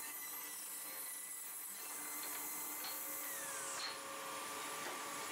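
Table saw running between cuts with a steady hum and whine, a brief falling tone about three seconds in. A few light knocks of walnut blanks being handled on the saw table.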